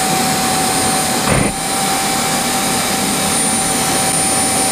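Homemade propane-fuelled turbojet with a radial turbine running steadily: a rushing jet noise with a steady high whine over it, briefly dipping about a second and a half in.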